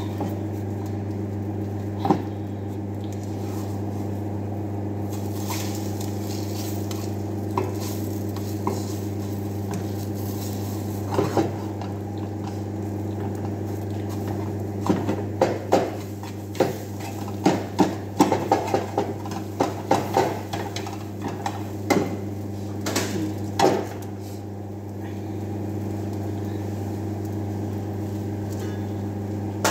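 Spatula scraping and knocking against a frying pan while stirring, in a busy run of clicks and taps mostly in the second half, over a steady machine hum.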